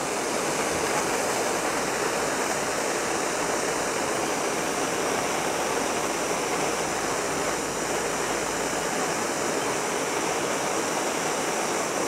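Handheld MAP-gas torch burning with a steady hiss as its flame heats the blades of pruning shears, sterilizing them against plant viruses.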